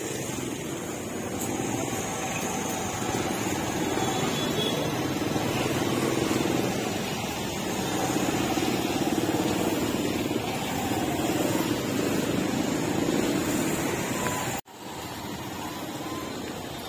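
Busy street ambience with motorbike and car traffic running in a steady din. The sound cuts out briefly near the end.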